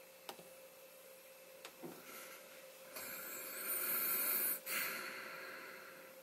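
A couple of faint clicks, then a long, breathy exhale near the microphone, loudest in the middle and broken briefly before it trails off.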